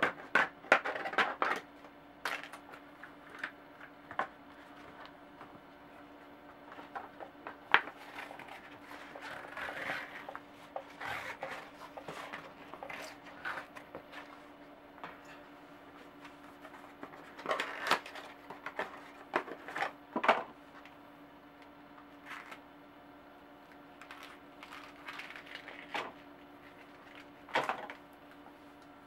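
Handling noise as a bicycle inner tube is taken out of its cardboard box and unrolled: scattered taps, clicks and rustles of cardboard and rubber, in irregular clusters with short quiet gaps.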